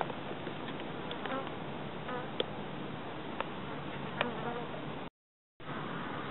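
Flies buzzing with a wavering pitch over a steady hiss, with a few faint clicks. The sound drops out completely for about half a second near the end.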